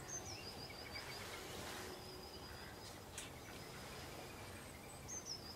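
A small songbird gives a short, high-pitched phrase of quick falling chirps, once at the start and again about five seconds later, over a faint steady hiss of light rain.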